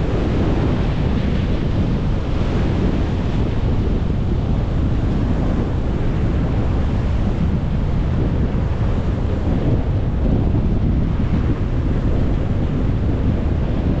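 Strong wind buffeting the microphone over rough sea surf breaking: a loud, steady rushing noise, heaviest in the low end.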